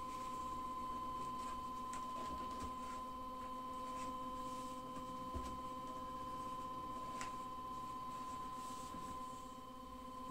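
Anycubic Wash & Cure station running its UV curing cycle with the turntable turning, giving off a steady high electronic whine, with faint tissue rustling and light ticks from handling.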